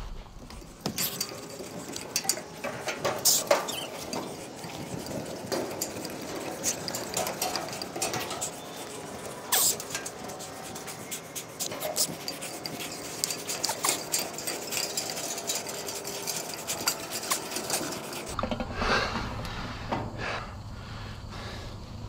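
Hands and boots clanking and tapping on the metal rungs of a tall steel ladder during a climb: a dense, irregular run of knocks and clicks. Near the end the tapping stops and a low steady rumble takes over.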